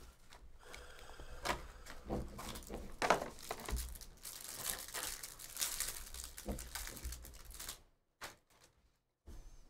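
Clear plastic wrapper of a pack of football trading cards being torn open and peeled off by hand: dense crinkling and tearing with many sharp little crackles, stopping about eight seconds in.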